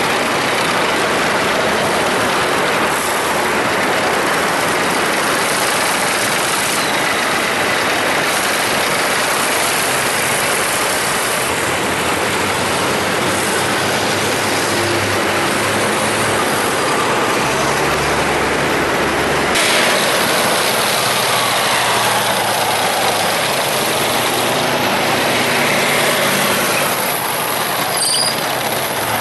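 A column of heavy military vehicles, wheeled rocket launchers and tracked armour, driving past on a city street: loud, steady engine and road noise, with the low engine note shifting as each vehicle goes by.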